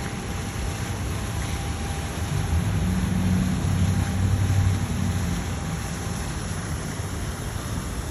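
Street traffic noise with one vehicle's low engine rumble that swells a couple of seconds in, peaks near the middle and fades away as it passes.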